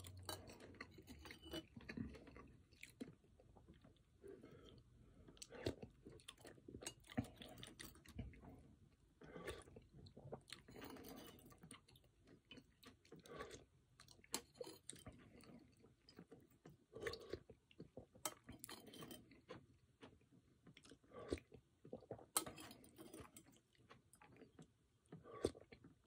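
Close-up chewing and biting of a mouthful of chicken pozole, quiet and irregular, with short crunches.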